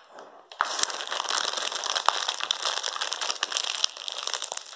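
A plastic sweets packet being scrunched and crumpled in both hands. It gives a continuous dense crinkling that starts about half a second in.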